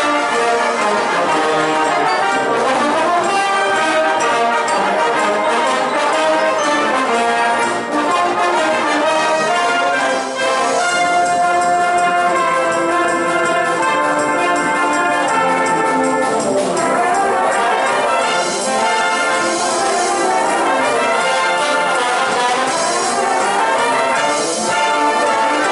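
A large massed brass band of cornets, trombones and tubas playing a piece together, loud and steady throughout.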